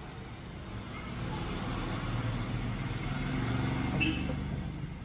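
A motor vehicle passing by. Its engine and road noise swell to a peak about four seconds in, then fade.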